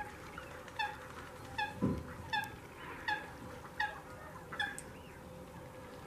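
Wildfowl honking: a run of six short honks, about one every three-quarters of a second, over a quiet wetland background, with a soft low thump about two seconds in.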